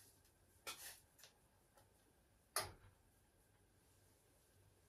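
A few soft, separate clinks and scrapes of a spoon against cookware, the loudest about two and a half seconds in, with near silence between them.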